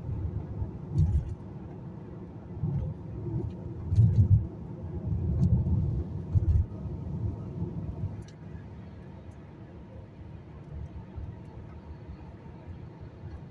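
Road noise inside a moving car's cabin: a low rumble of tyres and engine, with uneven heavier low surges in the first half that settle to a steadier, quieter rumble about halfway through.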